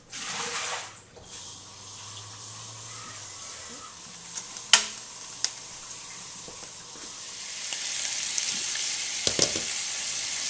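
Bacon starting to sizzle in a stainless steel skillet that began cool, the sizzle growing louder about eight seconds in as the pan heats. A short rush of running water at the start, and a single sharp knock about five seconds in.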